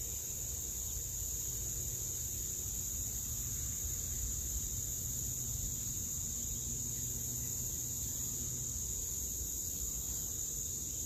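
Steady outdoor insect chorus, a continuous high-pitched buzzing trill that does not change, over a low background rumble.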